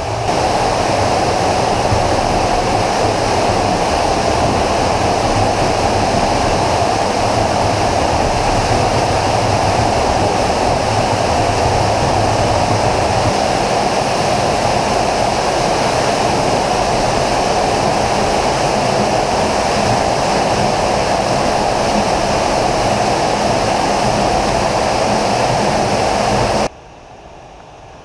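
Underground waterfall in a limestone cave plunging into a marble pool: a loud, steady rush of falling water. It cuts off suddenly near the end, leaving only a much quieter hiss.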